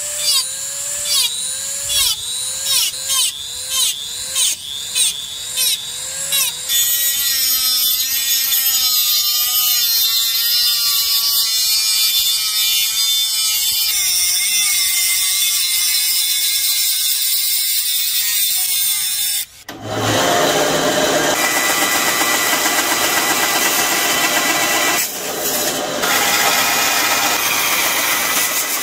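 Handheld rotary tool with a cut-off disc cutting a brass plate, first in short repeated strokes about two a second with the pitch dipping and rising each time, then as a steady high whine. About two-thirds of the way through, this gives way to a bandsaw cutting brass with a loud, even noise.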